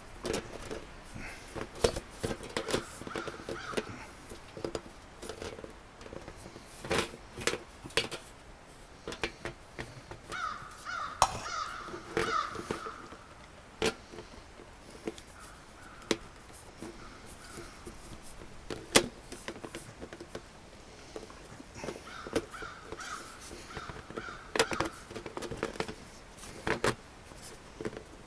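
Black steel stovepipe sections and an elbow clinking and scraping as they are pushed together by hand, with sharp metal clicks throughout. Crows caw in repeated bursts, most clearly about a third of the way in and again near the end.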